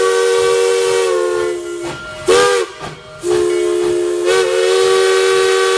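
Steam locomotive whistle blowing a chord of several notes at once over a steady hiss of steam. It sounds a long blast, a short one about two seconds in, then another long blast starting about three seconds in.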